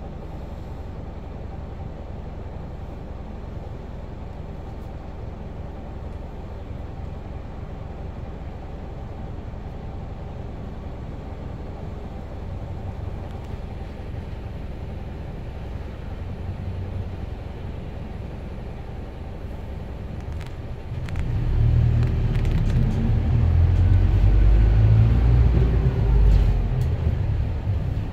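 City bus heard from inside the cabin, its engine idling in a steady low rumble while stopped. About 21 seconds in the engine gets louder, with a rising whine, as the bus pulls away.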